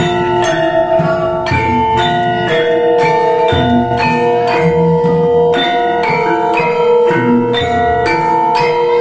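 Javanese gamelan ensemble playing a lancaran: bronze-keyed saron metallophones struck with wooden mallets at about two strokes a second, their ringing notes overlapping, with lower strokes underneath.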